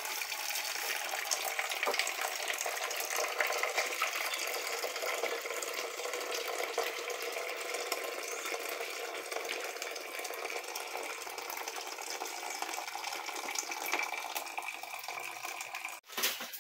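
Hot water poured steadily from a kettle into a cloth coffee filter, splashing onto the grounds as the coffee drips into the pot below; the sound cuts off suddenly near the end.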